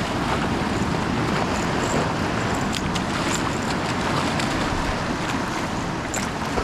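Surf washing over a shallow reef, with wind buffeting the microphone: a steady rush of noise with a few faint sharp ticks.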